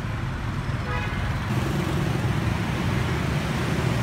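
Dense motor scooter and motorbike traffic: steady engine and road noise, with a short horn toot about a second in.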